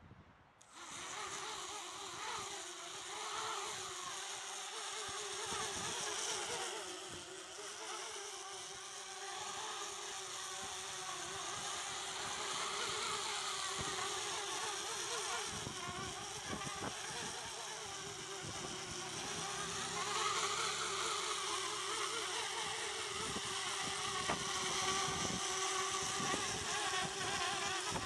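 Eachine Falcon 180 mini quadcopter's four brushless motors and propellers buzzing in flight, starting up just under a second in. The pitch wavers up and down constantly as the quad wobbles about in gusty wind.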